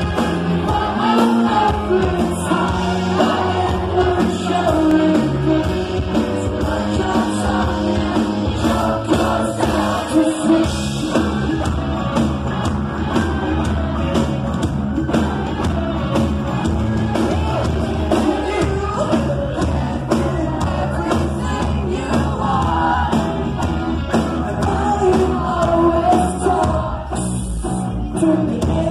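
A rock band playing live at full volume, with electric guitar and a lead singer, heard from the audience in a large hall.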